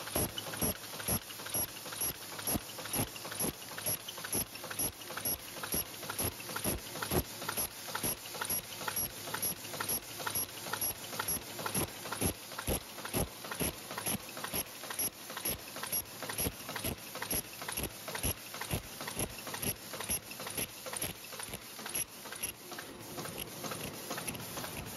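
High-speed paper cup forming machine running: a steady mechanical clatter of knocks and clicks, about two to three strokes a second, in step with its cup-forming cycle.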